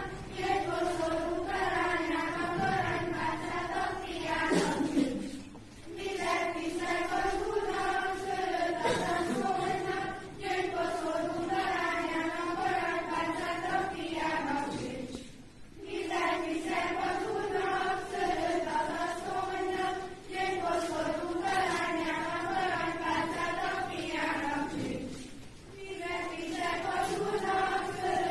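A group of young voices singing a song together in unison, in phrases about five seconds long with short breath pauses between them.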